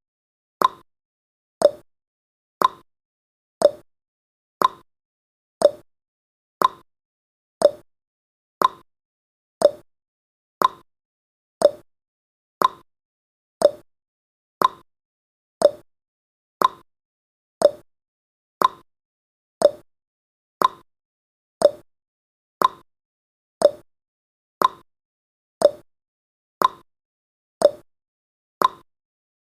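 Clock tick-tock sound effect marking the countdown: a short, sharp tick once a second, alternating between a higher and a lower tick.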